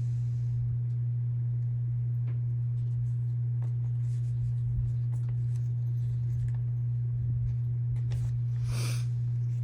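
A steady low hum, one unchanging tone, with a few faint clicks and a short rustle near the end.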